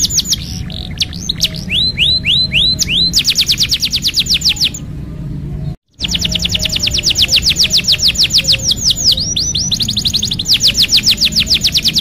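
Domestic canary singing in rapid rolling trills, each note a quick downward-sweeping whistle repeated many times a second, with a few slower hooked notes between the rolls. The song pauses about five seconds in, then starts again with long rolls.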